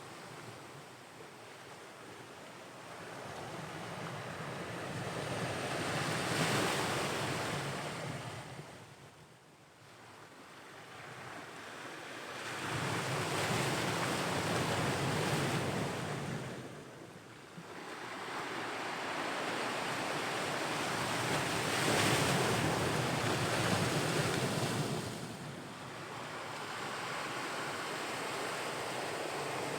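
Ocean waves breaking and washing on the shore, swelling and ebbing in three surges about every seven to eight seconds.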